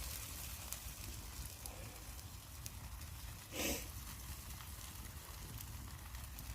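Campfire crackling with scattered small pops while a pan sauce simmers over it, and one brief louder noise about three and a half seconds in.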